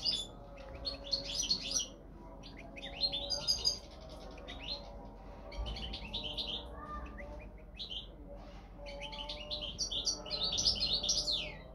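Goldfinch of the North African parva race singing: fast twittering phrases of high chirps and trills with short pauses between them, the last phrase ending in a falling note near the end.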